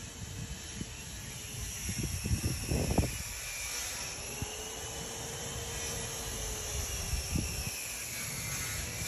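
Outdoor ambience: wind rumble and handling bumps on the microphone, under a faint distant motor drone that slowly rises and falls in pitch.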